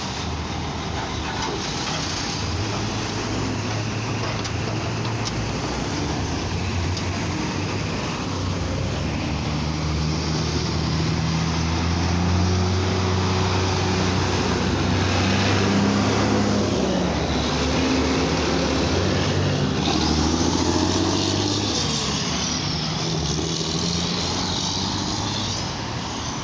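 Heavy diesel dump truck engines pulling away through an intersection, their low engine note rising and shifting through gears, loudest about midway, over passing car traffic.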